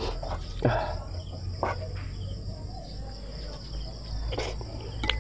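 Close mouth sounds of someone eating chicken and rice: chewing with a few sharp smacks and clicks, the loudest about two-thirds of a second in. A steady high insect drone runs underneath.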